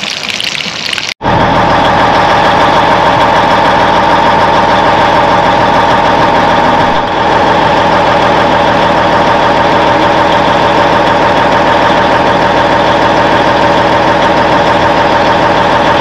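Hot oil sizzling for about a second, then a sudden cut to a loud, steady engine running at idle at an even pitch, with a brief dip about seven seconds in; it stops abruptly at the end.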